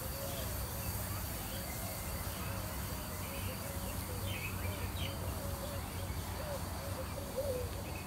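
Outdoor park ambience: birds calling with short warbling notes and occasional brief chirps, over a steady low rumble and a faint steady high-pitched insect-like tone.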